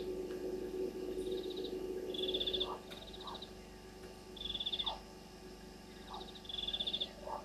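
Frogs calling at night: short, rapid, high pulsed trills repeated every second or so, with shorter low falling notes between them. A steady low drone under them fades out a little under three seconds in.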